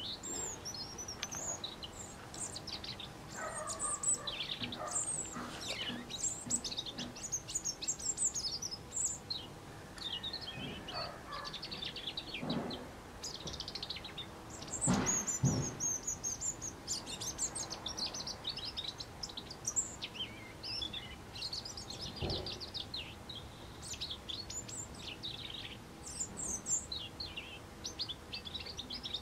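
European robin singing: phrases of high, thin, quick warbling notes, each a second or two long with short pauses between. About halfway through, two louder, lower sounds break in close together.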